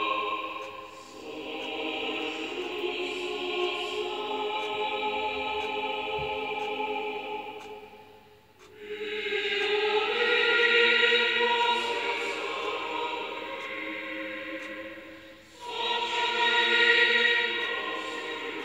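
Choir singing slow phrases of long held chords, with short breaths between phrases about a second in, about eight and a half seconds in, and near fifteen and a half seconds.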